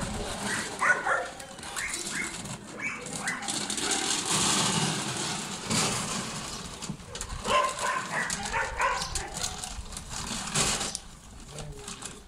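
Dogs whining: a few short, high, rising whines near the start and another cluster about eight seconds in, with rustling between.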